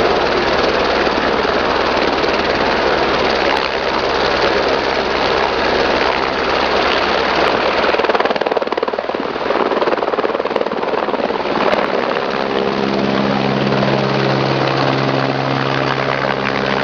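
Helicopter running at close range, its turbine and rotor loud and steady, with rotor wash blowing snow. It lifts off and passes overhead, and a steady low hum of rotor tones comes in near the end.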